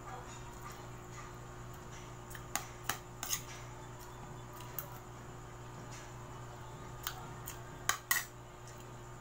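Scattered sharp clicks of tableware, a fork and a ceramic plate, as food is eaten, in two small clusters with the loudest pair near the end, over a faint steady hum.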